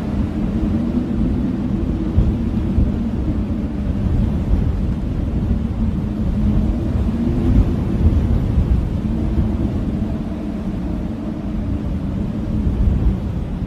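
Blizzard wind howling, a low moaning pitch that wavers and swells over a steady deep rumble of gusts.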